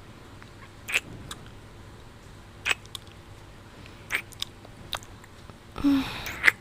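Close-miked ASMR kissing sounds: a handful of short, wet lip smacks spaced a second or more apart, then a longer breathy kiss near the end.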